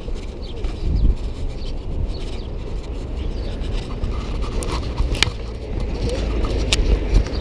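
City street noise: a steady low traffic rumble, with two sharp clicks, about five and about seven seconds in.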